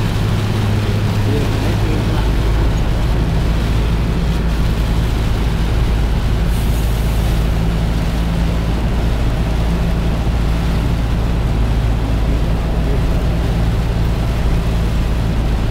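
Steady engine drone and tyre noise on a wet road, heard inside a moving vehicle's cab: a low hum under an even rushing noise.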